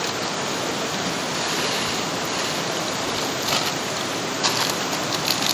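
Steady rushing of river water flowing over rocks, with a few light clicks in the second half.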